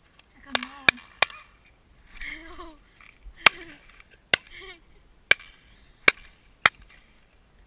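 A run of about eight sharp shotgun reports at uneven intervals from the guns on a partridge drive. Short rising-and-falling calls come in between them.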